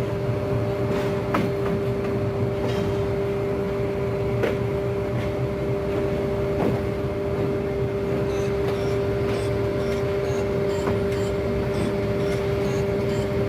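Diesel locomotive and train running slowly, with a steady whine of two held tones over a low rumble and scattered clicks and knocks. About halfway through, a series of short high chirps starts and repeats.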